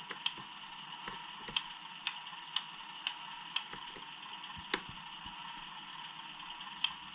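Turn-signal relay ticking from a Beier SFR-1 RC sound module's small loudspeaker, about two even ticks a second. A single louder click comes a little past the middle, the ticking pauses for about two seconds, then resumes near the end.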